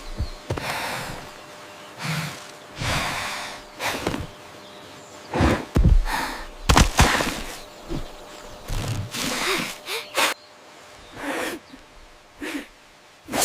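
Cartoon sound effects: a string of about a dozen short breathy huffs and gasps, some landing with heavy low thuds, the loudest a little past the middle.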